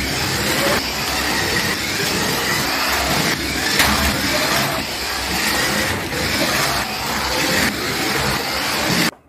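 1/16-scale RC toy cars running fast across a wooden floor: electric motors whining over the rush of the wheels, changing every second or so, then cutting off abruptly near the end.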